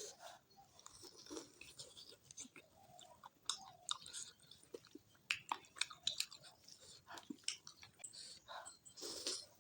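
A person chewing food close to the microphone, with irregular wet mouth clicks and small crunches.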